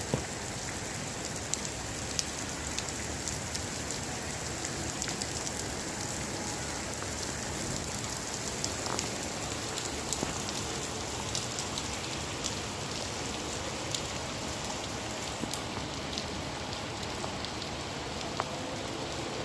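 Steady rain falling on a surface, an even hiss with scattered sharper drop ticks.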